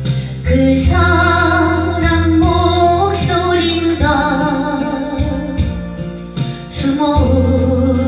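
A woman singing long held notes with vibrato over an instrumental backing track.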